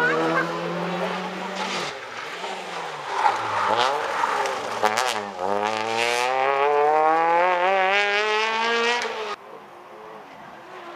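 Rally car engine at full throttle: the revs fall and climb again several times with throttle lifts and gear changes, then one long rising pull. About three-quarters of the way in it cuts suddenly to a quieter, more distant car engine.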